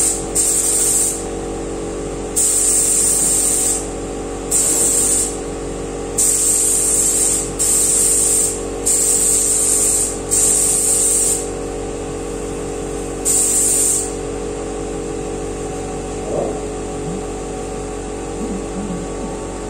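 Compressed-air gravity-feed paint spray gun hissing in short trigger-pulled bursts of about a second each, eight or so, stopping about fourteen seconds in, as a bumper is sprayed. A steady machine hum runs underneath.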